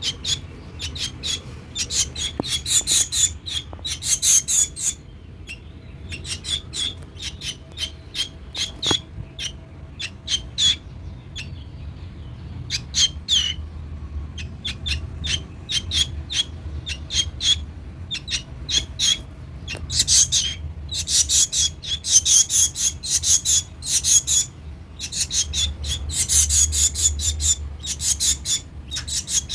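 Baby bird chirping: rapid runs of short, high-pitched, scratchy calls, a few seconds at a time with brief pauses.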